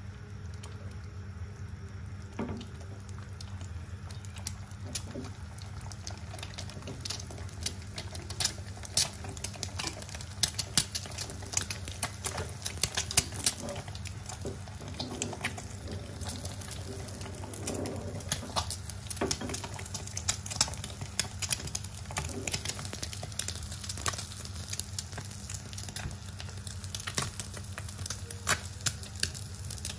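Quail eggs frying in hot oil in a small pan, crackling and spitting with sharp pops that grow more frequent after the first several seconds, over a steady low hum.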